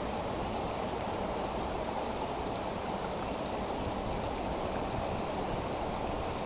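Steady rushing noise of flowing water, even and unbroken, with a faint high-pitched whine held throughout.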